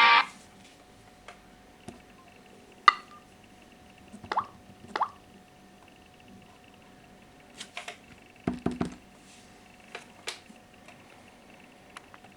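Scattered light clicks and knocks from phones being handled, with a duller thump about eight and a half seconds in, over a faint steady hum.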